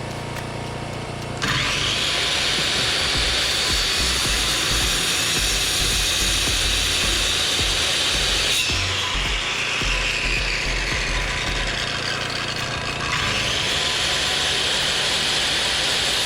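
Jigsaw cutting through a 1/2-inch polycarbonate sheet to free a seized metal bit. It starts suddenly about a second and a half in and runs steadily, its pitch sagging under load in the middle and picking back up near the end.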